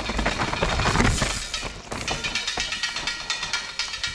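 Downhill mountain bike passing close over rough ground: tyres crunching and the bike clattering, loudest about a second in, followed by a run of quick rattling ticks.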